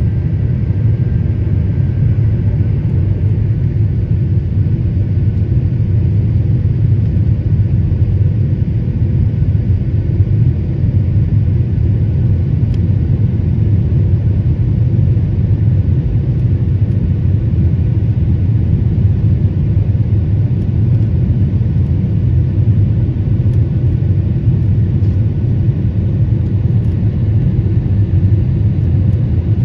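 Steady low rumble of an airliner's engines and airflow heard inside the passenger cabin during takeoff and the initial climb.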